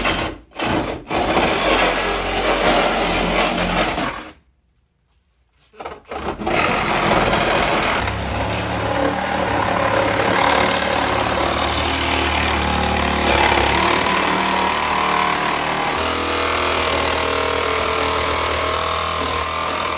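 A power saw cutting the van's body with a harsh, steady noise, heard in several edited clips with a short silent gap about four seconds in.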